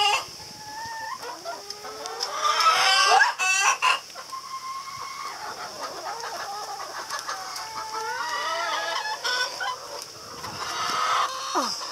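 Hens clucking and squawking in alarm as they are chased, in many short calls, with a loud burst of squawks about three seconds in and another near the end.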